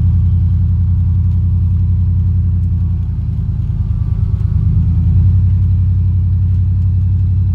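Vehicle engine and road noise heard from inside the cab while driving: a steady low drone that eases a little about three seconds in and picks up again about five seconds in.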